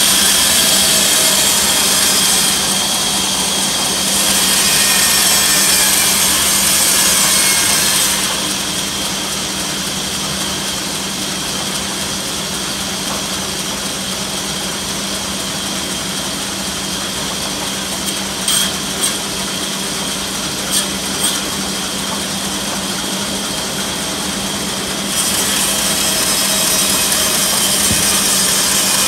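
Large sawmill band saw running with a steady motor hum as its blade cuts through a willow log. The sawing noise is louder for about the first eight seconds and again for the last few, and a handful of sharp clicks come in between.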